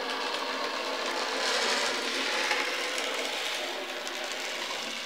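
Bachmann Narrow Gauge Rusty, a small die-cast HOn30 model locomotive, running on N-gauge track: a steady whir of its little electric motor and wheels on the rails, a little louder about a second and a half in.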